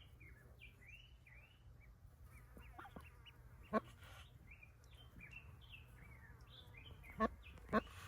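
Ducklings peeping, a steady string of short high chirps. Three brief sharp louder sounds stand out, one about four seconds in and two close together near the end.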